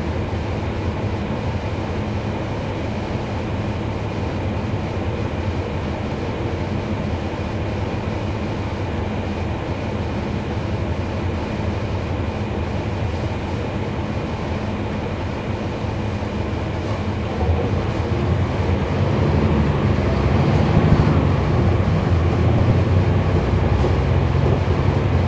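Cabin sound on board a 2011 NABI 416.15 (40-SFW) transit bus with a Cummins ISL9 diesel: a steady engine hum and rumble that grows louder about seventeen seconds in.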